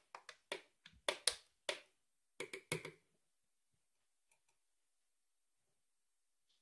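Metal spoon clinking against the inside of a glass measuring jug while stirring softened gelatin into thick cherry purée: a quick, irregular run of about a dozen sharp clicks that stops about three seconds in.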